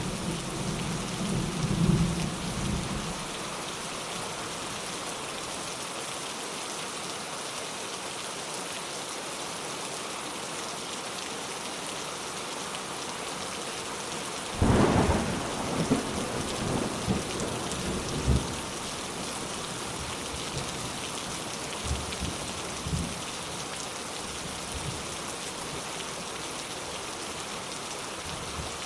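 Steady rain with thunder. A low rumble fades out in the first few seconds; about halfway through a sudden thunderclap rolls on for about four seconds, followed by a couple of fainter rumbles.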